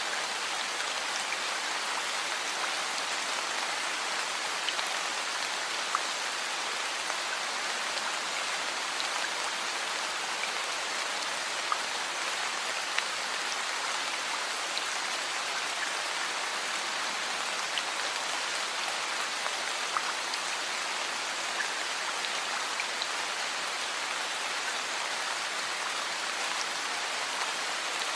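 Heavy rain falling steadily: a dense, even hiss of rain with occasional sharper drop hits standing out.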